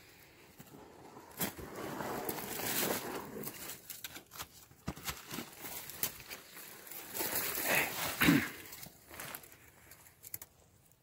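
Dry grass and brush rustling and crackling as someone moves and handles things among the rocks, with scattered clicks and knocks. The noise comes in uneven spells, with a louder flurry about two seconds in and the loudest one about eight seconds in.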